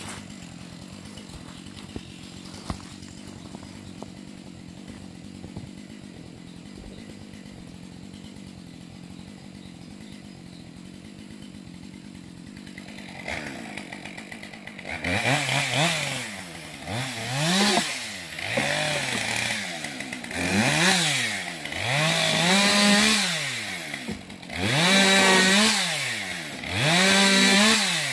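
Husqvarna 550 XPG Mark II two-stroke chainsaw idling faintly. About halfway through it is revved up and down again and again, about seven short full-throttle bursts roughly two seconds apart, as it cuts through frozen spruce branches.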